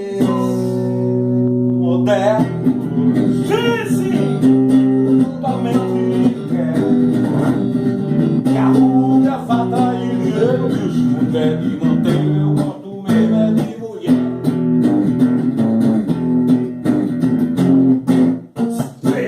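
Acoustic guitar strummed and plucked, with a voice singing over it.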